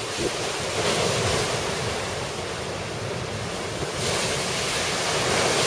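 Rough storm surf crashing against a seawall and washing over it, with wind buffeting the microphone. The rush of water swells louder about a second in and again from about four seconds.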